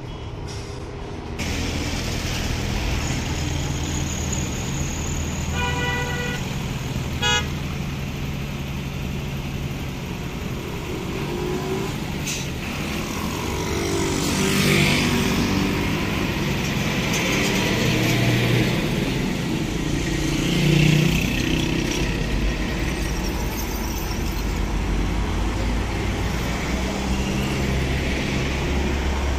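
Hino bus diesel engine running amid street traffic, with two short horn blasts about a second apart, and the engine note rising and falling later on.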